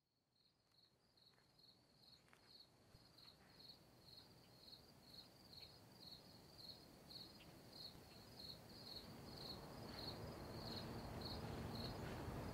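Crickets chirping in a steady rhythm, about two to three short high chirps a second, fading in from silence over the first few seconds and growing louder, over a low outdoor background rumble.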